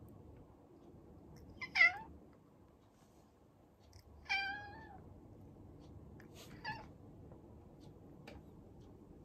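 A tabby cat meowing three times, about two and a half seconds apart: the first is the loudest, the second the longest, the third faint.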